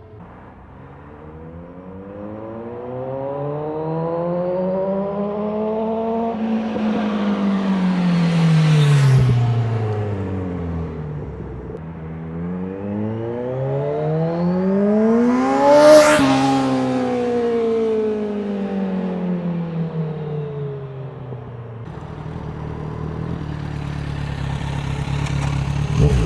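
Kawasaki Z1000 inline-four motorcycle with a Vance & Hines slip-on exhaust, passing by twice under power. Each time the engine note climbs as the bike approaches and drops as it goes past; the second pass, about two-thirds through, is closer and louder. Near the end the engine settles to a steady low note.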